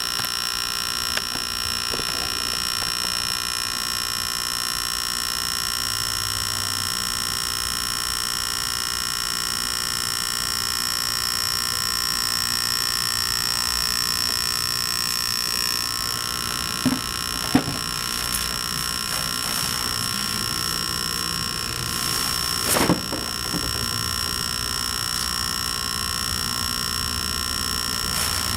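Small electric air-mattress inflator running steadily with a high-pitched whine as it inflates an air mattress. A few brief knocks come in the second half.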